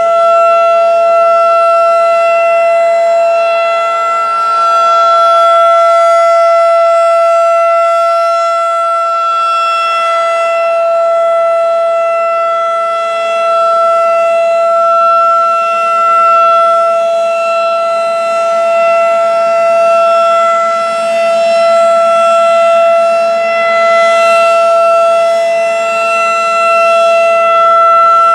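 Federal Signal 2001-DC roundback outdoor warning siren sounding a steady alert tone in a siren test. It holds one pitch without winding up or down, and its loudness swells and eases slowly.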